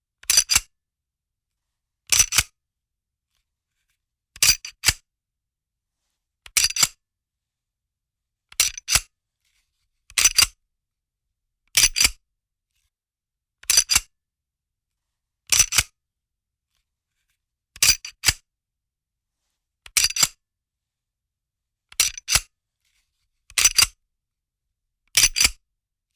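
A handgun's metal slide being worked over and over, one quick burst of two or three sharp metallic clicks about every two seconds, with silence in between.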